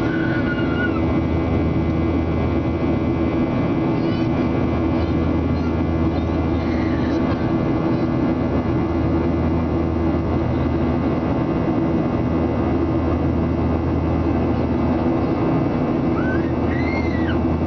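Steady drone of a jet airliner's engines and airflow, heard from inside the passenger cabin as it climbs after takeoff. A few faint, brief, high-pitched wavering sounds come through it about a second in, around seven seconds in, and near the end.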